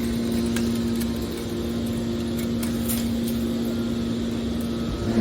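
Hydraulic scrap metal baler running with a steady hum, with a few faint clicks.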